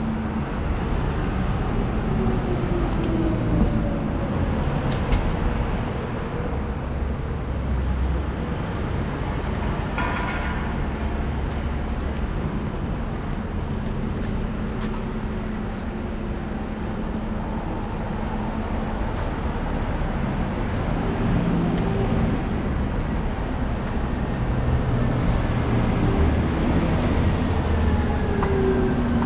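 Street traffic: engines of passing motor vehicles running steadily, with a brief high tone about ten seconds in.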